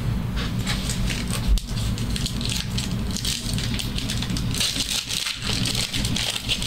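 Trading card pack wrappers and cards being handled: a dense, continuous run of crinkling and rustling.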